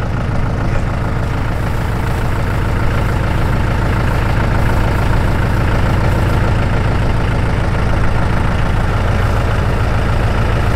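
An engine idling steadily, with an even low-pitched throb.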